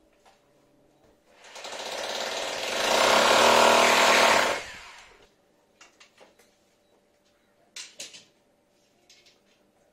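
Corded electric drill boring into the wall to fix the air conditioner's mounting plate: it runs for about three seconds, getting louder partway as the bit bites, then stops. A few short knocks follow near the end.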